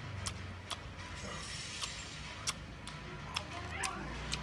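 Eating sounds from crispy fried chicken feet: about seven sharp crunches and clicks spread over a few seconds, over a low steady hum.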